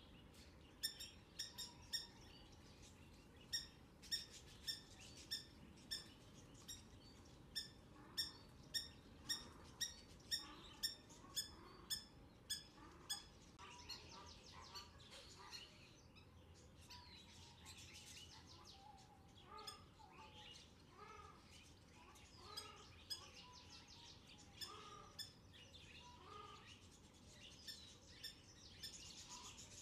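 Spur-winged lapwing calling faintly: sharp high calls repeated about twice a second for the first half, then softer, varied chirps with gliding pitch and a few more sharp calls near the end.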